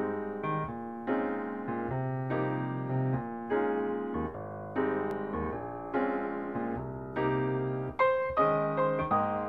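Background piano music: a gentle melody of struck notes and chords, each fading away before the next.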